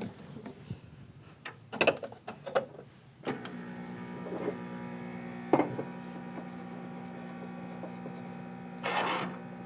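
A few handling clicks and knocks on the Ascaso Basic espresso machine, then, about three seconds in, its vibratory pump starts with a steady hum as the espresso shot begins to brew. There is a sharp click midway and a short hiss near the end.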